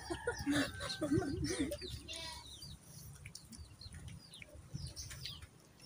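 Birds chirping in the background: a scatter of short, high calls over a quiet stretch, with low voice-like sounds in the first couple of seconds.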